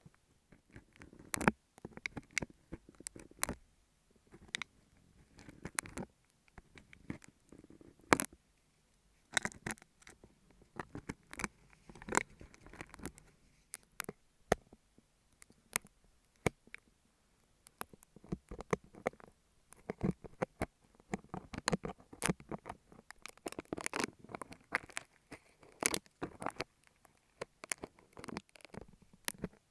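Utility knife blade scraping and cutting a beeswax sheet held right at an earphone microphone: irregular clusters of sharp clicks and crackles over a soft scraping.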